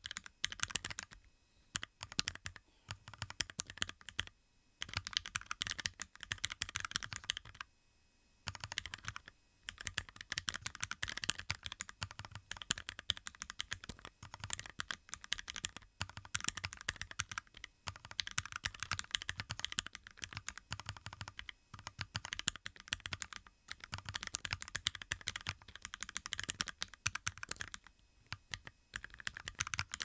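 Typing on an aki27 Cocot46plus keyboard fitted with Keyreative ABS Cherry-profile blank keycaps over Gateron Speed Silver linear switches: fast runs of clacking keystrokes broken by short pauses.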